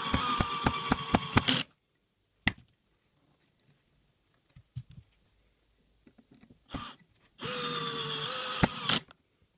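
Power drill-driver driving a wood screw through a metal handrail bracket into a beech handrail: a short run of motor whine with rapid clicks, a pause with a few small clicks, then a second run about seven and a half seconds in that drives the screw flush.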